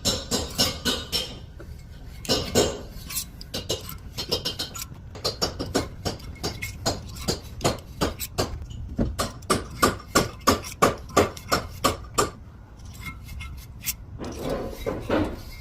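A chamfer tool scraping and clicking against the tops of the valve guides on a cast-iron Dodge 318 cylinder head, a quick run of sharp metallic clicks a few times a second that thins out near the end. It is deburring the sharp lip left by machining the guides for positive valve stem seals, so the valves won't hang up.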